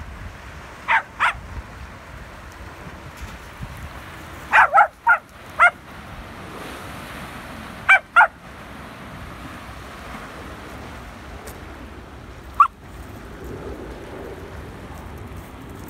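Small dog barking: short, high-pitched barks in clusters of two, then four, then two, then a single bark near the end. Behind them is a steady rush of wind and waves.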